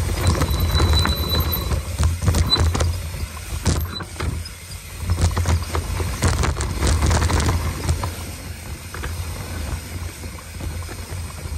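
Mountain bike descending a dirt trail at speed: wind rushing over the microphone, knobby tyres rolling on dirt, and the bike rattling and knocking over bumps, easing off briefly about four seconds in.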